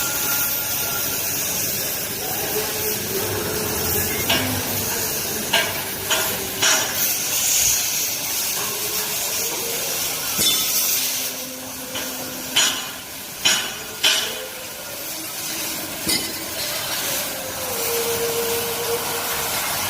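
Sharp metal clanks and clinks, like steel pieces being struck with a hammer, over a steady hiss from gas cutting work. There are about eight knocks, in a cluster a few seconds in and another past the middle.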